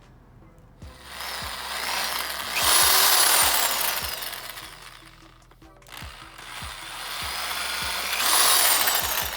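Power drill boring holes in a car's chin spoiler, in two runs that each build up and then die away, with a high whine that falls in pitch as each run ends.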